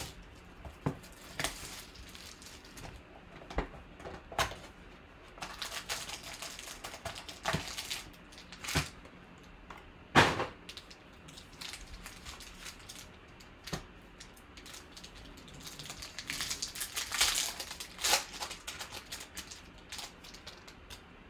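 Foil trading-card pack wrappers crinkling and crackling as the packs are handled, with scattered sharp taps and clicks. A denser run of crinkling near the end, as a pack is torn open.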